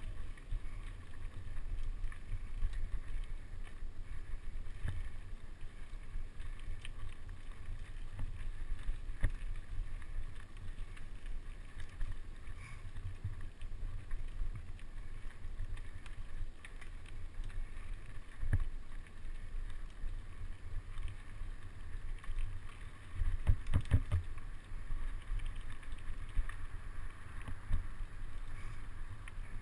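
Mountain bike ridden along a dirt woodland trail: a steady low rumble with wind on the microphone. Occasional knocks and rattles come as the bike goes over bumps, the loudest a quick cluster about three-quarters of the way through.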